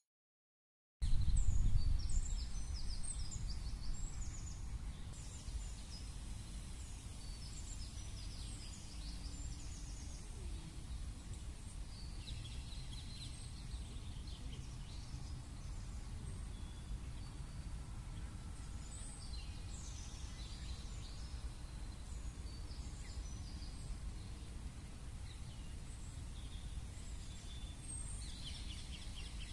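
Outdoor park ambience starting about a second in: many small birds chirping in the trees over a steady low rumble.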